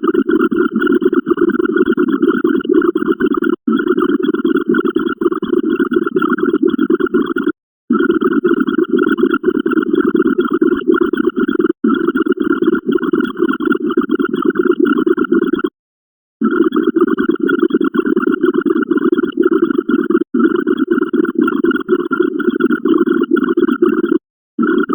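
A dense, noisy sound effect playing in stretches of about four seconds, each cut off by a brief silent gap.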